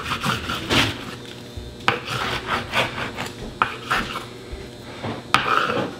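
Long knife sawing back and forth through a raw ribeye roast as it is cut into steaks: a series of uneven rasping strokes.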